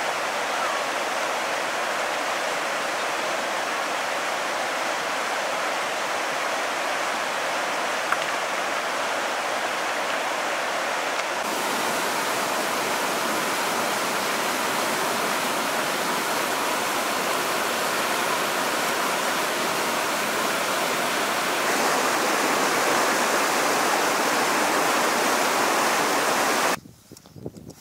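A fast river rushing over rocks in whitewater rapids, a loud, steady rush of water that steps up slightly twice and cuts off suddenly near the end.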